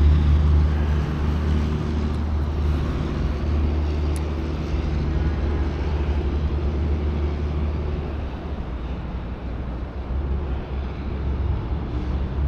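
Steady low roar of high water pouring over the dam's gate and spillway, loud and continuous, easing slightly in the second half.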